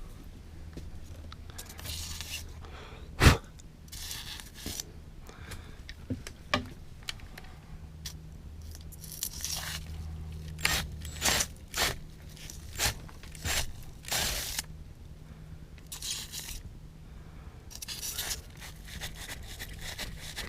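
A tool scraping and crunching through the RV's roof and ceiling material in short, irregular bursts, with several sharp knocks, the loudest about three seconds in.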